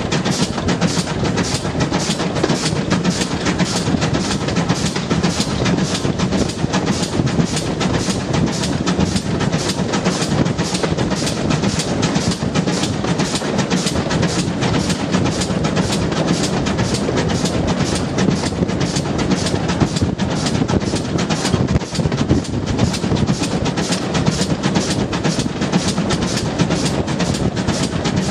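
Green GWR-style steam locomotive hauling a train at a steady running speed, heard from the leading carriage: a rapid, even beat of about four to five a second over a constant rush of wheel and rail noise.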